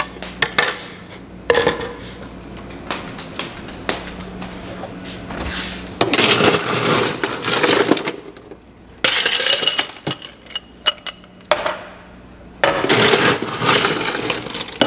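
Ice cubes tumbling and clinking into drinking glasses, with sharp glassy clinks and a few longer rattling stretches.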